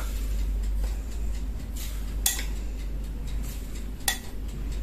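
A metal spoon scoops salt out of a glass bowl and clinks against the glass twice, about two seconds in and again about four seconds in, over a steady low hum.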